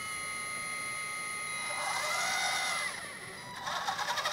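Electric hydraulic pump motor of a 1/14 scale LESU LR945 metal RC excavator whining steadily as the radio's mix control drives the pump. About two seconds in, a second whine rises and falls in pitch while the boom and arm are worked, and a fast rattle comes near the end.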